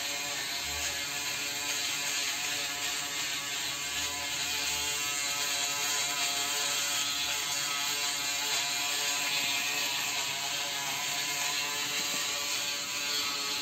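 Braun Series 3 ProSkin 3010s electric foil shaver running steadily as it is moved over beard stubble: a continuous motor buzz with a high cutting hiss.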